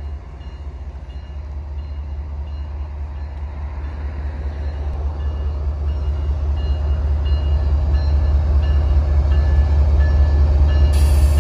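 Diesel locomotives at the head of a freight train approaching, a deep engine rumble growing steadily louder.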